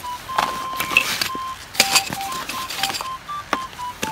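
Camping gear being handled on a tarp: rustling of nylon stuff sacks and light clinks of small hard items, in short bursts, loudest about a second in and near the middle. A faint run of short, steady whistle-like tones that step up and down in pitch carries on behind it.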